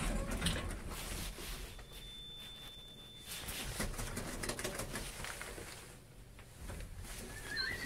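Lift push buttons clicking as they are pressed, then a single long, high, steady beep lasting about a second and a half.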